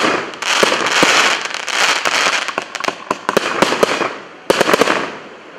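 150-shot consumer fireworks cake firing in rapid succession: many sharp bangs from launches and aerial bursts, with a dense crackle of small reports. A fresh cluster of bangs comes about four and a half seconds in, then the sound dies away.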